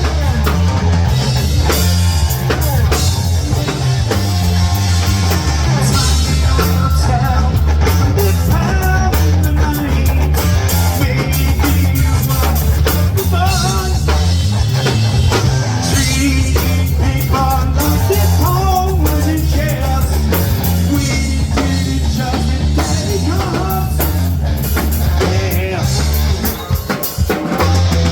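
Live rock band playing loud, with drum kit, electric guitar, heavy bass and a singer, a brief dip near the end.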